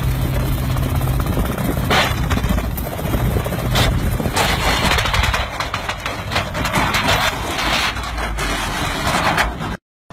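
Tow vehicle running at speed with wind rushing over the microphone, an engine hum fading out after about a second and a half. A couple of sharp knocks follow, then from about four and a half seconds in a louder, crackling rush as the towed rotor-winged car tips over onto the runway.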